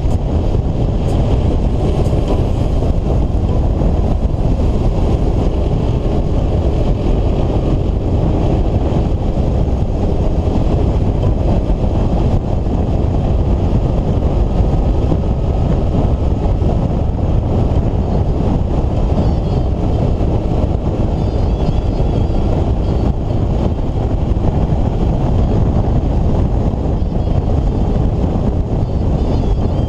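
Steady rush of wind and driving noise from a moving vehicle on a wet road, a deep unbroken rumble with a faint engine hum underneath.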